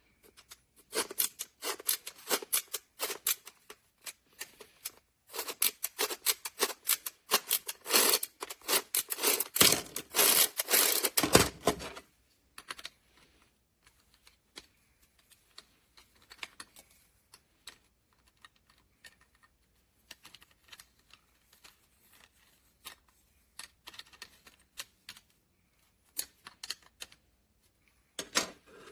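A boxed toy and its plastic wrapping being handled: irregular clicks, taps and crinkles, dense for about the first twelve seconds, then only now and then.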